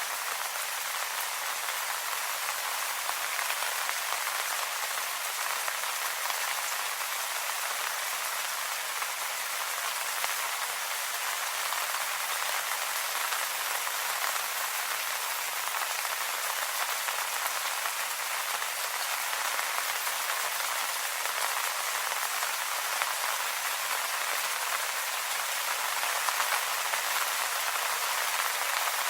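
Steady rain falling on leaves: a dense, even spatter of drops with no let-up or change in strength.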